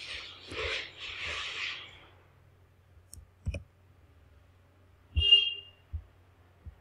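A few scattered clicks of a computer keyboard and mouse, with a soft breathy rush in the first two seconds.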